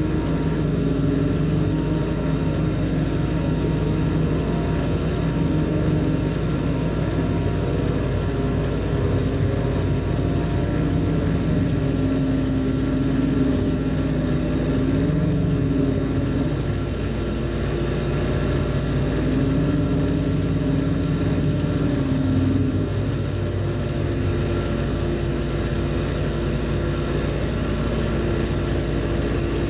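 Heavy machinery running steadily with a deep drone, its pitch stepping up and down every few seconds.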